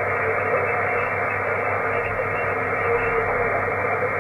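ICOM HF transceiver receiving single-sideband: a steady, narrow hiss of band noise through the receiver's SSB filter as the operator listens on his frequency between CQ calls.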